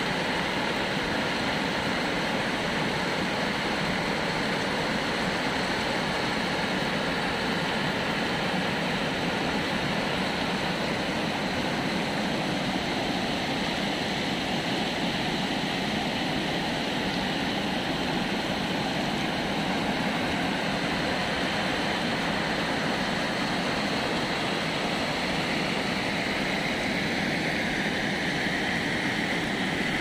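Steady rushing of muddy floodwater pouring over a concrete river weir, an even roar with no change in loudness.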